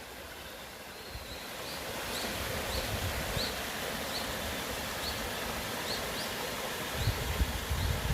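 Mountain stream running with a steady rushing sound, while a bird repeats a short rising chirp roughly every half-second to two-thirds of a second. A low rumble joins near the end.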